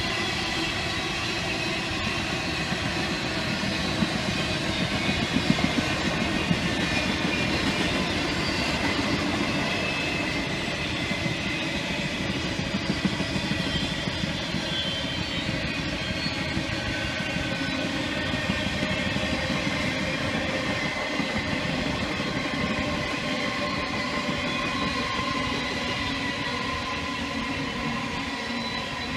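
Intermodal freight train's container cars rolling past: a steady rumble of steel wheels on rail, with a few sharp clicks between about four and seven seconds in.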